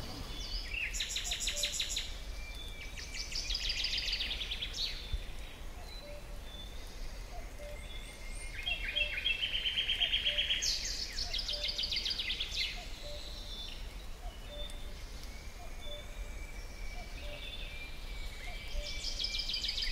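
Forest birds singing: bursts of rapid trilling song phrases every few seconds, with faint short repeated calls in between.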